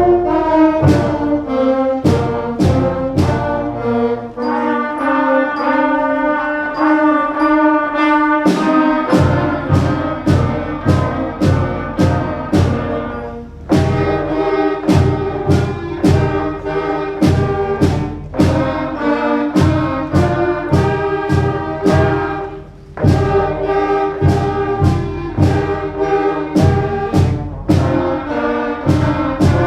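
A beginning school concert band of brass, woodwinds and percussion plays a medley of short Christmas carol fragments built on the players' first six notes. Sustained wind notes sound over steady drum hits at about two a second, and the band breaks off briefly twice.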